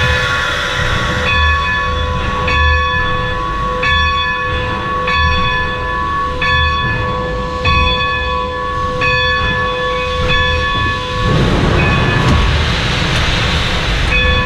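Steam locomotive's bell ringing, struck about once every 1.3 seconds with its tone hanging on between strikes. About three-quarters of the way through the ringing stops and a loud hiss of steam takes over, and the bell starts again at the very end.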